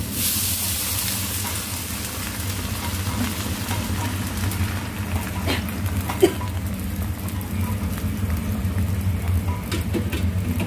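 Liquid poured into a hot wok of stir-fried eggplant, giving a sharp burst of sizzling hiss that eases within about a second into steady bubbling and sizzling. There are a couple of knocks around six seconds in.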